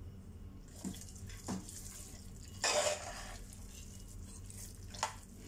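A steel spoon stirring thick, soft ven pongal in an aluminium pressure cooker: quiet wet scraping and squelching, with a short louder scrape nearly three seconds in and a few light knocks of the spoon against the pot.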